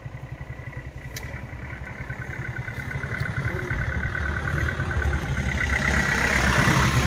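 A vehicle engine running with an even, rapid pulse and a faint whine above it, growing steadily louder as it draws nearer.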